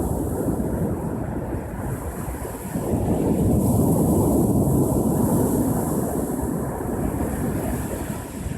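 Ocean surf: waves breaking and washing ashore in a steady low rumble that eases briefly a little over two seconds in, swells again about three seconds in and eases near the end.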